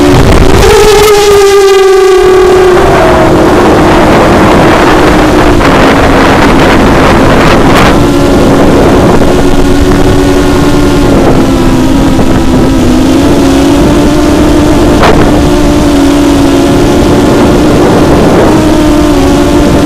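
ImmersionRC Vortex racing quadcopter's brushless motors and propellers whining steadily, loud through its onboard camera, with a rush of air noise. The pitch eases down over the first few seconds, then holds, dipping again near the end.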